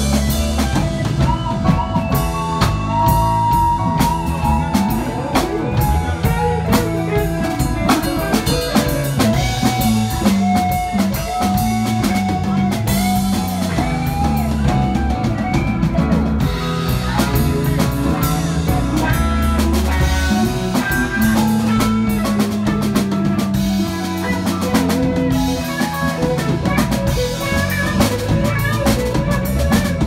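Live rock band playing an instrumental passage: electric guitars with bending lead lines over a drum kit and keyboards.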